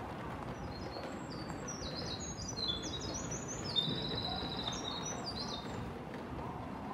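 Birds chirping: a quick string of short, high chirps for a few seconds, fading out near the end, over the low steady hum of an open railway platform.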